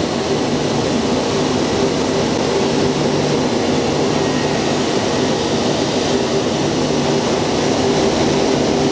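CNC milling machine spindle running with an end mill cutting into an aluminium Lamborghini Gallardo V10 engine block, taking a small amount off the lower main-bearing area. A steady machine hum with a few held tones and no breaks.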